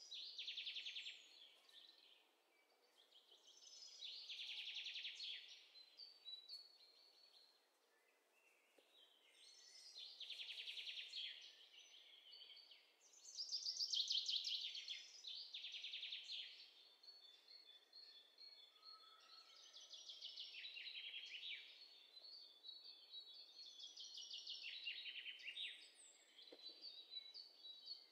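Faint birdsong sound effect: songbirds chirping in high-pitched bursts of rapid trills, one every few seconds.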